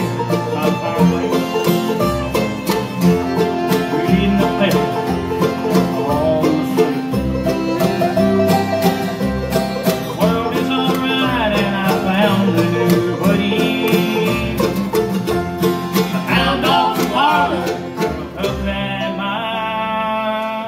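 Live bluegrass band playing: banjo rolls over acoustic guitar and upright bass, with a lead singer. The tune closes on a long held chord near the end.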